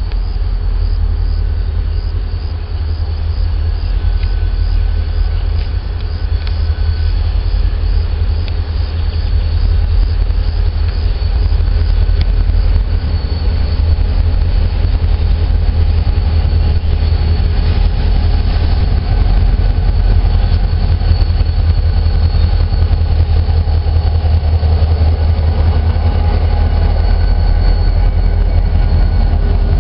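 Diesel locomotive hauling a freight train approaching along the line and passing close by near the end: a low rumble that grows steadily louder, with the wagons' wheels rolling on the rails.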